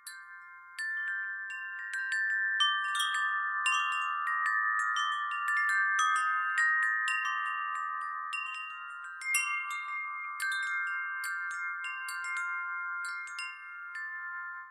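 Wind chimes tinkling: many light strikes whose several tones ring on and overlap, fading out at the end.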